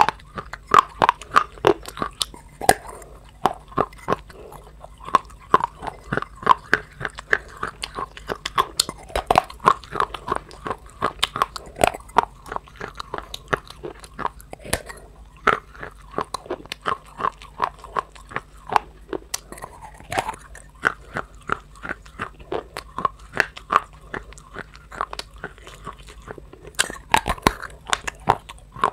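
Close-up crunching bites and chewing of hard, brittle baked clay, a dense run of sharp, irregular crackles several times a second with brief lulls.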